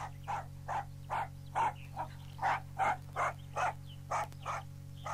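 A dog barking quickly and repeatedly, about two to three short barks a second, over a steady low hum of the old tape recording.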